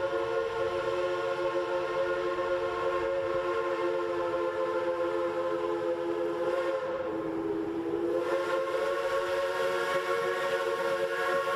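Steam locomotive chime whistle blowing one long, steady chord, sagging in pitch about seven seconds in and then coming back up.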